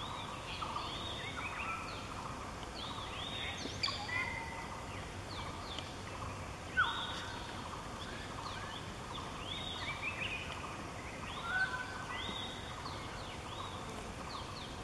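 Many wild birds calling together: a steady chatter of short, overlapping chirps and gliding whistled calls, with a few louder calls standing out about 4, 7 and 11 seconds in.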